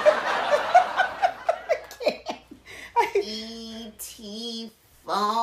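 A woman giggling in quick bursts, about four a second, then from about three seconds in two drawn-out hummed sounds with a short break between them.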